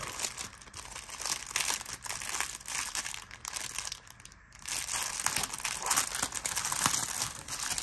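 Clear plastic packaging bag crinkling as hands open it and work a card of lace trim out of it, with a short lull about halfway through.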